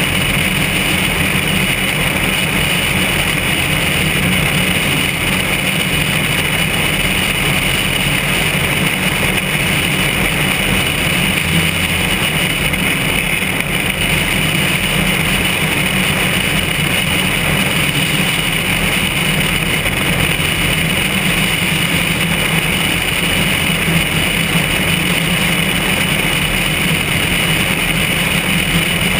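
Steady, unbroken vehicle running noise mixed with wind, holding the same level throughout.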